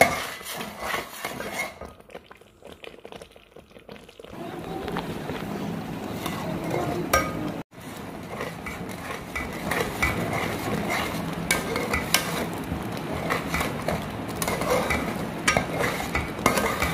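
A spoon stirring and scraping round a large pot of cream that is cooking down into desi ghee, with small clinks against the pot. It is quieter for the first few seconds, then the stirring becomes steady and busier.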